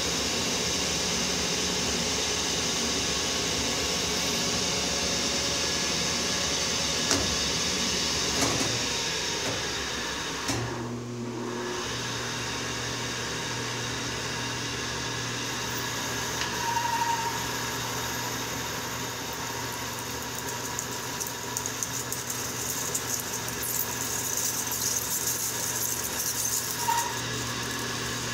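Rivett 918 turret lathe running with its spindle turning. The steady running note changes about ten seconds in. From around twenty seconds a tool cutting the metal stock adds an irregular crackle of chips.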